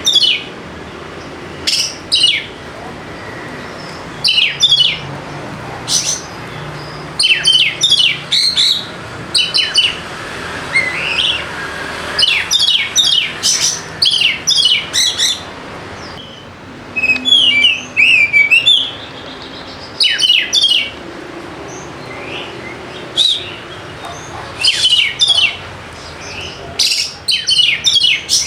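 Oriental magpie-robin (kacer) singing in short, loud bursts of rapid high notes and slurred whistles, phrase after phrase every second or two with brief gaps.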